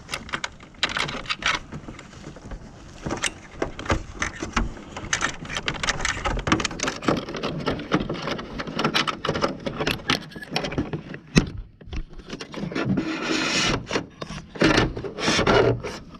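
Electrical wires being pulled through the plastic housing of a mini-split indoor unit: irregular scraping, rustling and clicking of wire against plastic.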